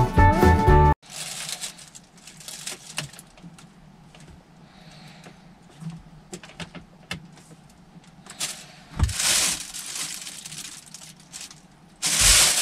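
Background music that cuts off about a second in, then scattered light clicks and rattles of the plastic centre-console trim of a 2002 Volvo V70 being handled and pressed into place, with rustling of a plastic bin bag; louder rustles about nine seconds in and near the end.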